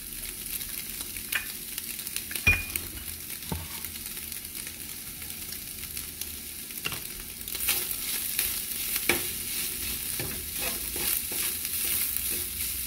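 Ground beef with chopped green chiles frying in a nonstick pan, sizzling steadily. There is a sharp knock about two and a half seconds in. From a little past halfway, a plastic spatula scrapes and stirs the meat, breaking it up, and the sizzle grows louder.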